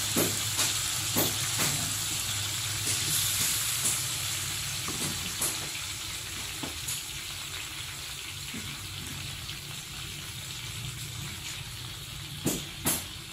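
Beef slices in their marinade sizzling in a hot wok, the hiss slowly dying down. A few sharp clicks come in the first two seconds, and two louder ones near the end.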